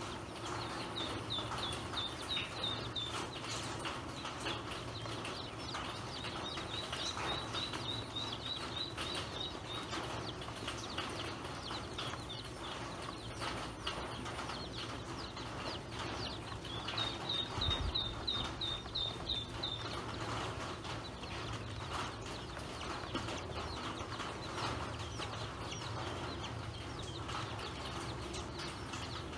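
A brood of ducklings peeping in quick runs of high calls while pecking grain from a plastic basin, with many small ticks of bills against the plastic. There is one dull thump just past halfway.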